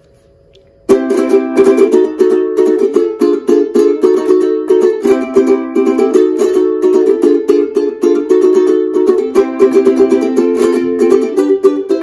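Bamboo BU23 Blossom concert ukulele, an acoustic okoume-wood cutaway, strummed in a steady rhythm through a run of changing chords, starting about a second in.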